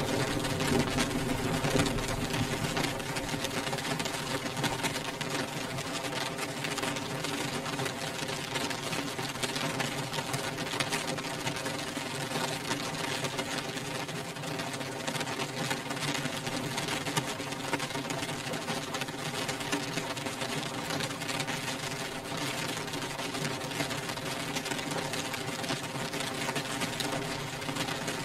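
Rain beating on window glass: a dense, steady patter of drops, fuller and deeper for the first couple of seconds before settling.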